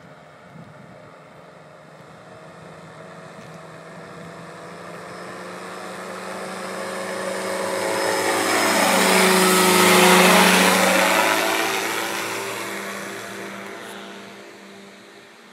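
Powered parachute's engine and propeller passing low overhead. The engine sound grows steadily louder to a peak about ten seconds in, drops in pitch as it goes by, then fades away.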